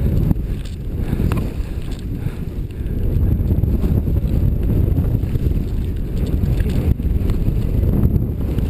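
Wind buffeting a point-of-view camera's microphone while riding fast downhill through deep powder: a steady low rush with no distinct events.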